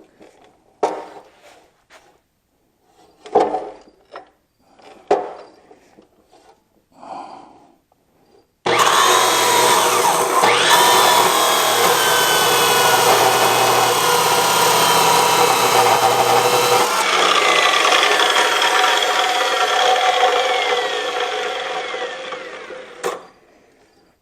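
A few knocks and clunks as steel stock is clamped. Then, about nine seconds in, a power saw starts suddenly and cuts through the steel with a loud, steady grinding noise and wavering tones. After about eight seconds the cutting sound drops and fades away as the tool winds down.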